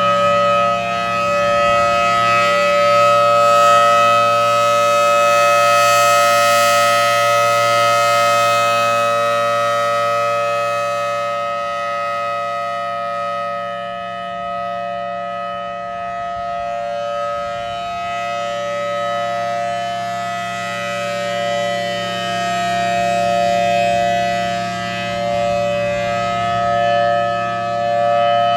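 Federal Signal Thunderbolt 1000AT rotating outdoor warning siren sounding its steady Alert tone at full speed, holding one pitch while the loudness slowly swells and fades as the horn turns toward and away.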